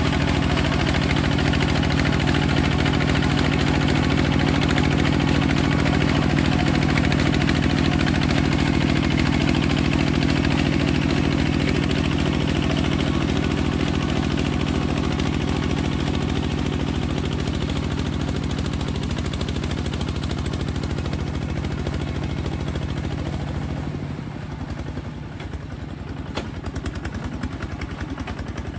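Small bulldozer's engine running steadily, then dropping to a lower, quieter idle about 24 seconds in.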